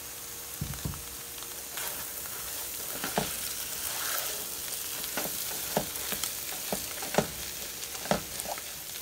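Potato and chickpea paste sizzling as it fries in hot oil in a frying pan, the sizzle growing about two seconds in. A spatula scrapes and knocks against the pan now and then as the paste is stirred in.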